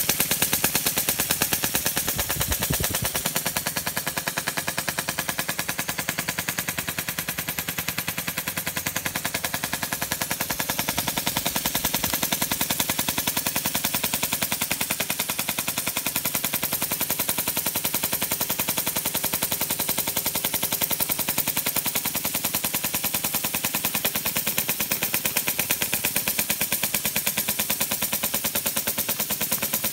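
Model steam engine running fast on steam from its boiler, a rapid, even beat of exhaust chuffs at a steady speed throughout, with a throaty note from its modified piston body that now covers the ports completely.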